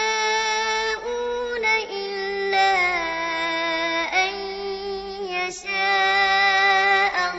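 Melodic Quran chanting: a voice drawn out on long held notes, stepping from one pitch to the next every second or so.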